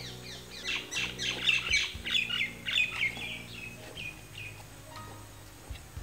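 Birds chirping in a fast run of short, falling notes, several a second. The chirping is loudest in the first half and fades out a little past the middle.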